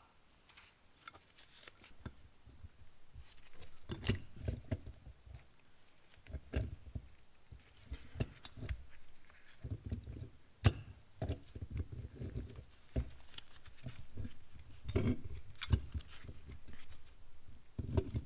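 Irregular metal clicks, taps and low knocks from an old cast-iron Carter one-barrel updraft carburetor being handled and taken apart by hand. Sharp clicks are scattered among short clusters of duller clunks and rustling.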